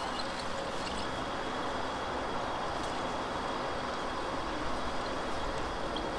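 Steady rushing outdoor noise of a bike ride: passing road traffic and strong wind buffeting the microphone, with a few faint high chirps.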